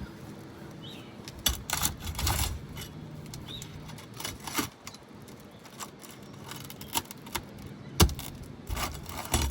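Metal flat bar clicking and scraping against asphalt shingles and roofing nails as stubborn nails are pried out, with a sharp metallic click about eight seconds in.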